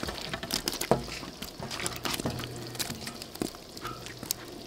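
Pineapple chunks dropped into a steaming aluminium pot of fish soup, splashing into the broth, then a ladle stirring the soup. Scattered sharp clicks and small splashes, the loudest near the start and about a second in.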